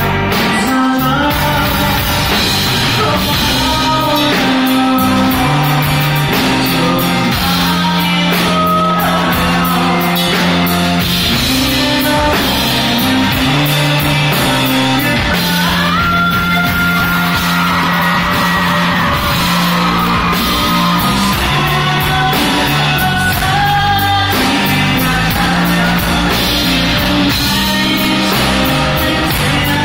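A live rock band playing through a hall's PA: a male lead singer over electric bass, electric guitar and drums. About halfway through, a high note slides up and is held for a few seconds.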